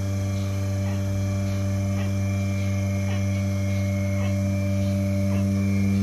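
Milking machine running on a cow: a steady electric hum from its vacuum pump, with faint clicks about once a second from the pulsator.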